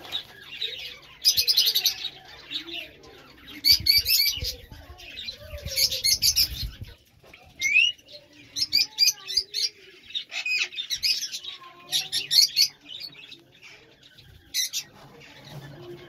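A flock of lovebirds chirping and chattering, in repeated bursts of shrill calls.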